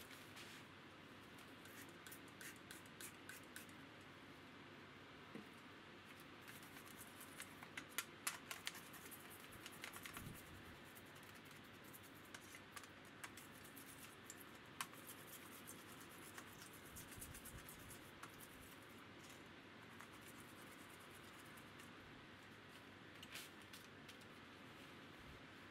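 Faint scratchy scrubbing with scattered light clicks and taps of small metal parts, thickest about a third of the way in: a toothbrush scrubbing nicotine grime off bass tuning-machine parts in a metal tray.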